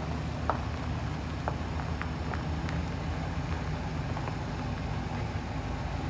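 2001 Ford E-350 van's engine idling with a steady low hum, with a few short high chirps over it in the first three seconds.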